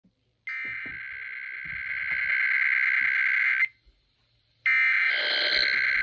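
Emergency Alert System digital header tones (the SAME data burst) played through a small radio's speaker: two harsh buzzing bursts of about three seconds each, a second apart. They are the coded opening of an EAS required weekly test.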